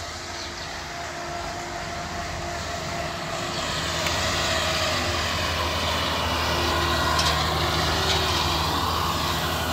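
Kubota DC-70 tracked combine harvester's diesel engine running steadily as the machine drives down a bank onto a barge ramp, growing louder as it comes closer.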